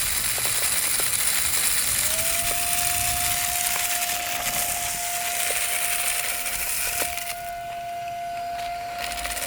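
Cordless stick vacuum's motor whining steadily while it sucks up sand with its filter removed, with rushing air and scattered ticks of sand grains. The whine rises in pitch about two seconds in and holds, and the rushing air briefly drops away near the end.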